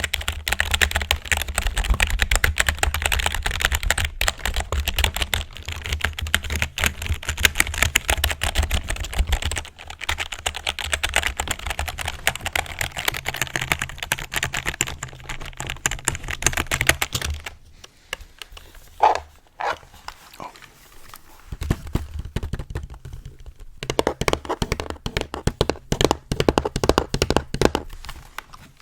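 Fast, continuous typing on a computer keyboard, a dense run of key clicks. About two-thirds of the way through it stops for several seconds, with two brief sounds in the gap, then the typing starts again.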